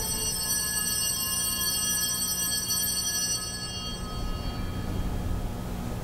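Altar bell rung at the elevation of the chalice during the consecration at Mass: many clear tones ring out together and fade over about four seconds, the lowest lasting longest, over a steady low hum.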